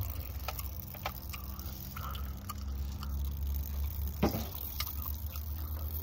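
Wet sludge of spent water-softener resin pouring from an upturned tank and splattering onto a pile on gravel: scattered small wet splats and drips, one louder splat about four seconds in, over a low steady rumble.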